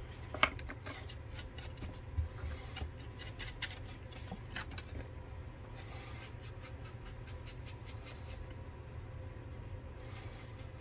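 Round ink blending tool dabbed and rubbed along the edges of white cardstock to distress them with ink, giving a scattered string of light taps and soft scuffs over a steady low hum.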